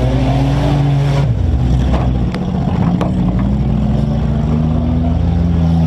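Engines of several compact demolition derby cars running and revving at once, their pitches rising and falling over one another. Two sharp knocks come about two and three seconds in.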